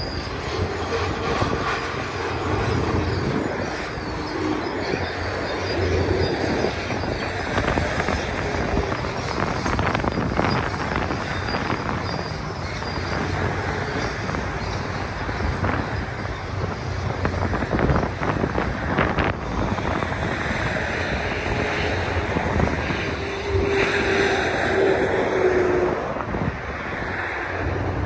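Freight train of autorack cars rolling past on a curve: a steady rumble and rattle of wheels on rail with occasional clanks, and short squeals of wheel flanges now and then. Wind buffets the microphone.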